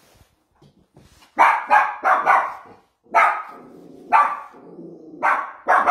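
A young small white dog barking in a string of sharp, loud barks, several in quick pairs, starting about a second and a half in, with a low rumble between barks in the second half. It is nervous barking at other dogs, which the trainer puts down to insecurity.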